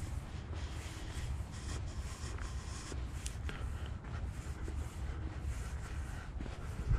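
Footsteps scuffing along a dirt trail strewn with dry leaves, a scratchy crunch at about walking pace, over a steady low rumble of wind and handling on a body-worn action camera. A single low thump near the end.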